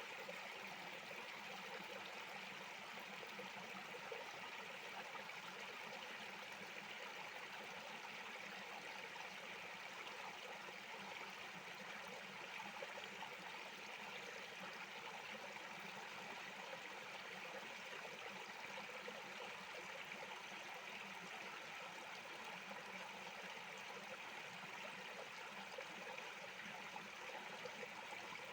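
A small creek flowing over stones, a steady rushing and trickling of water.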